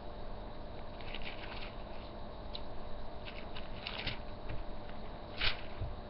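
Faint rustling and light clicks of something being handled, with a louder rustle about five and a half seconds in.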